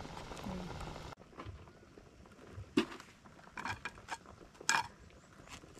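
Several separate knocks and clinks of cooking pots and utensils being handled, the loudest a little before the end. Before them, about a second of steady background noise cuts off abruptly.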